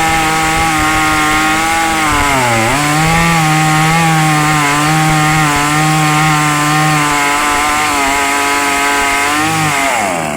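Two-stroke chainsaw engine running at high revs, the pitch dipping briefly about two and a half seconds in and then picking back up, and falling off as it is throttled down near the end.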